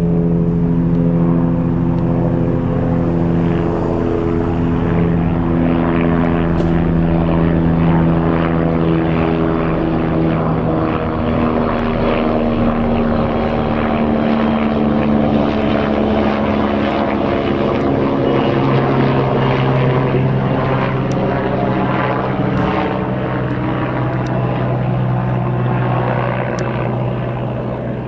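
AgustaWestland AW119 Koala helicopter flying low overhead just after take-off: the steady thrum of its main rotor and single turboshaft engine, sliding slowly lower in pitch as it passes and moves away, a little fainter near the end.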